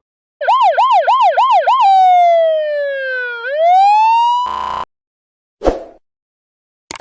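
Police car siren: a quick yelp of about five rapid up-and-down sweeps, then one slow wail that falls and rises again before cutting off. A short burst of noise and a brief thump follow.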